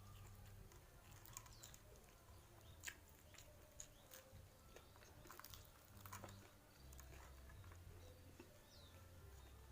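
Faint close-up chewing and biting: scattered small crunches and mouth clicks, irregular, over a steady low hum.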